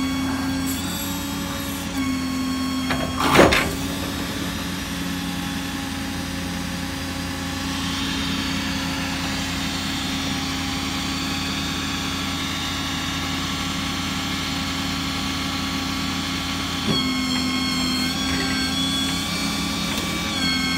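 Ford 6.7 L Power Stroke diesel running steadily with the PTO engaged, driving the hydraulic pump of the truck's IMT service crane, with a whine that shifts as the crane functions are worked. One sharp knock about three and a half seconds in is the loudest sound.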